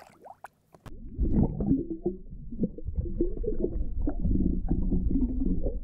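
A few small splashes of water at the surface, then from about a second in a muffled, low rumbling and gurgling of water moving over a submerged camera microphone.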